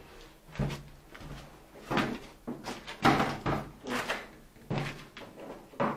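A series of about a dozen irregular knocks and clatters, some of them dull and hollow.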